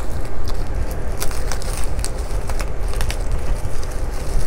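A plastic bubble mailer crinkling as it is pressed flat and opened by hand, with scattered sharp crackles.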